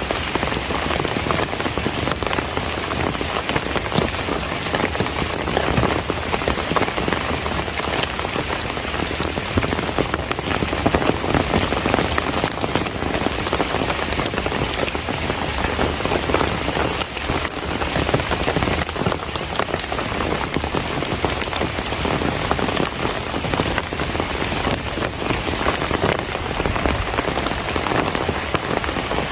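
Steady heavy rain falling and pattering on surfaces, with dense drops.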